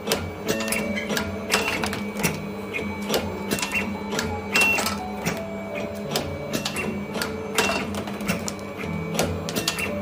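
Automatic large-wire stripping and cutting machine running a cycle: motor-driven feed rollers whining in tones that shift in pitch, with sharp clacks from the cutting and stripping blades about once a second.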